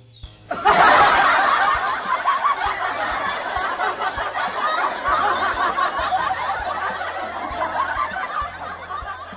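Canned audience laughter, a laugh-track sound effect of many people laughing together. It starts abruptly about half a second in and slowly fades toward the end.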